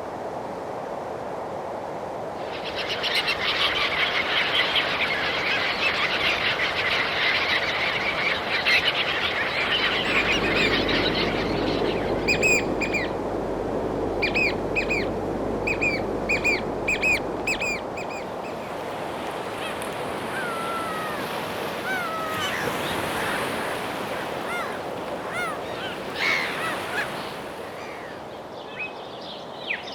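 Birds calling over a steady rushing background: first a dense chattering chorus, then a run of sharp repeated calls, then scattered whistled notes that glide up and down.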